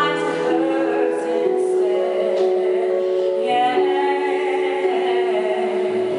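A woman sings long held notes with a keyboard accompanying her, in a live acoustic performance.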